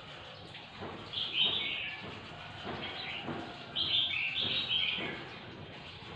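Clusters of short, high chirps from small animals, a few calls at a time, loudest about a second in and again around four to five seconds in, over a few soft knocks.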